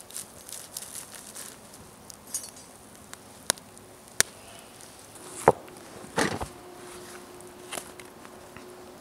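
Wood campfire crackling, with two sharp pops a little past halfway and a couple of louder thumps and rustles soon after.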